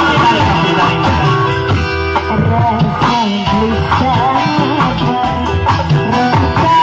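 A woman sings a duet song into a microphone, her voice amplified through a sound system over live instrumental accompaniment. Her melody wavers with ornamented turns.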